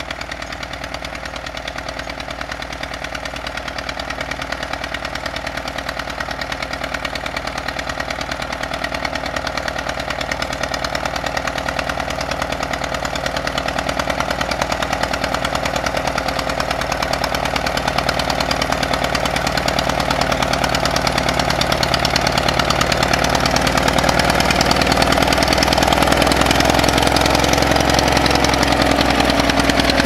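David Brown 2D tractor's two-cylinder air-cooled diesel engine running steadily under load while pulling a plough, growing gradually louder as the tractor comes closer.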